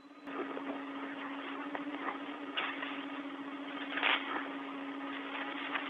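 Open space-to-ground radio channel: a steady hiss of static with a low, constant hum tone, switching on about a quarter second in, with two brief louder puffs of noise around the middle.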